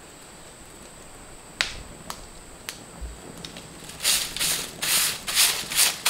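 A few separate sharp clicks, then from about four seconds in a run of rhythmic scraping strokes, about two a second.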